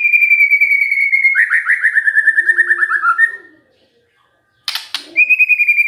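White-rumped shama singing: a long, slightly falling whistle breaks about a second and a half in into a rapid descending trill. After a short pause there is a sharp click, and the whistle starts again near the end.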